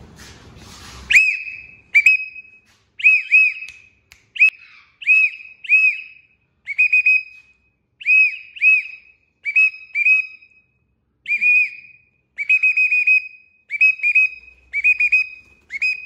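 A person whistling to call a young parakeet to fly to his hand: short clear whistled notes, each rising and falling, in quick pairs and runs of three to five, repeated about once a second from about a second in.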